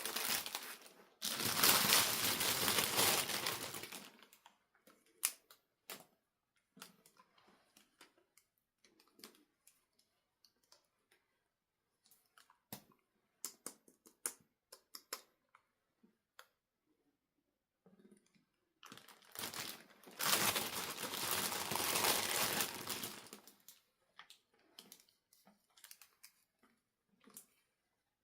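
Packaging crinkling and rustling in two long stretches, one near the start and one about two-thirds through. Scattered small clicks and taps of handling come in between.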